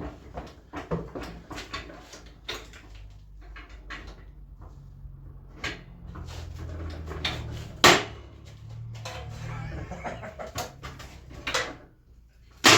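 Steel bucket parts being knocked and clanked into position during fit-up, with many irregular knocks. The loudest strike comes about two-thirds of the way in and another at the very end, and a low hum runs through the middle.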